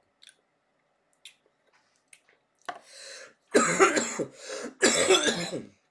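A man coughing hard in two loud bouts, about three and a half and five seconds in, after a short breathy exhale, following a deep pull on a live rosin vape cartridge.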